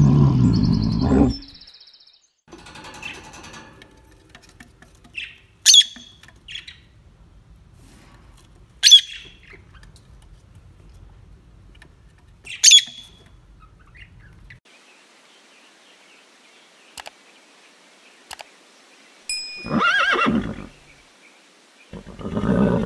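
A brown bear's low growl at the start, then three sharp squawks from peach-faced lovebirds, a few seconds apart. Near the end a horse whinnies twice.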